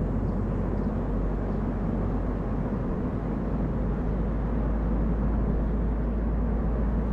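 A car driving at a steady pace: an even, low rumble of engine and tyre noise.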